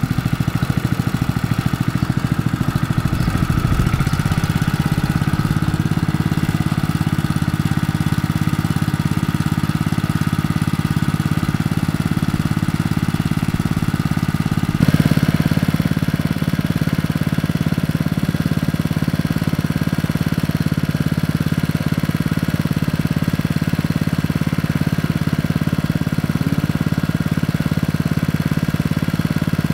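Honda GP160 single-cylinder four-stroke engine of a portable water pump running steadily.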